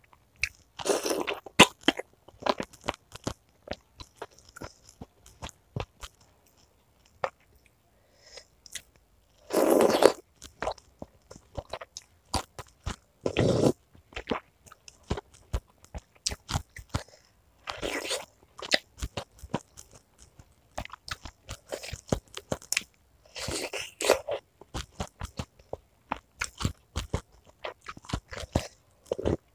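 Close-miked chewing and crunching of crisp food, a dense run of small crackles with several louder bites now and then.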